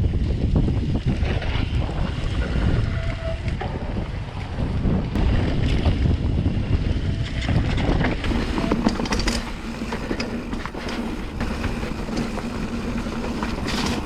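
Wind buffeting the microphone of a camera on a mountain bike riding a muddy trail, with a constant low rumble and many sharp rattles and knocks from the bike and tyres over the rough ground. A faint steady hum joins in about halfway through.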